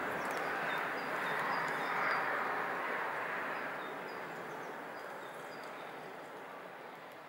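Steady rushing outdoor ambience with short, high bird chirps scattered through it, the whole fading gradually away.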